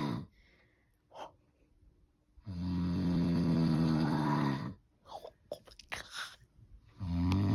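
A person snoring with a deep, pitched, growl-like snore that sounds demonic. One snore dies away just after the start, a long one of about two seconds comes in the middle and another begins near the end, with quiet breathing and small mouth clicks between them.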